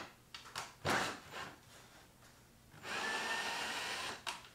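Cordless drill driving a brass screw into plywood: a few light knocks of handling, then the motor runs steadily for about a second and a half, starting a little past the middle.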